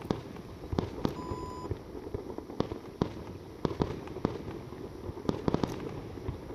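Aerial fireworks going off: irregular sharp bangs of shells launching and bursting, several in quick succession about five seconds in, over a steady low rumble.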